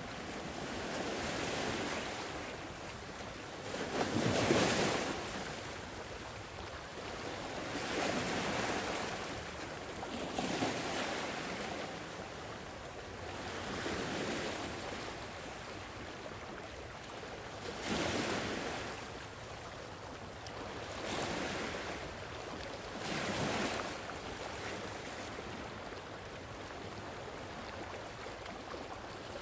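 Gentle sea waves breaking and washing on a shore, one swell every three to four seconds, the strongest about four seconds in.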